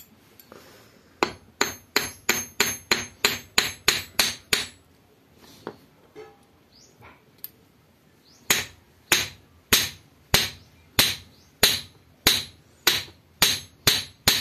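Small hand hammer striking a freshly melted lump of gold on a steel anvil block, beating it flat before it is reheated and rolled into wire. A quick run of about eleven ringing metal-on-metal strikes, a pause of a few seconds, then about ten slower strikes.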